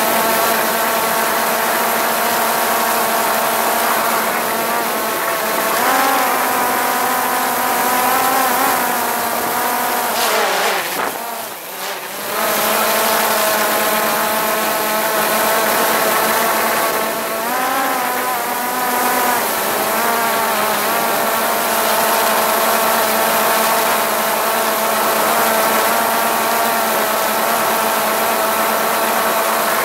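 Drone's electric motors and propellers whining steadily in flight, heard up close. The pitch swings up and down briefly about six seconds in and again near eighteen seconds, and the sound drops away for a moment about eleven seconds in.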